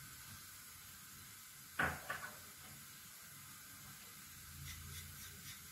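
A sharp knock about two seconds in, quickly followed by a smaller one, over faint room tone; a few faint light ticks near the end.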